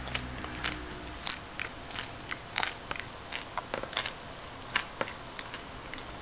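A person chewing a scorpion close to the microphone: irregular crunches and clicks, a few a second.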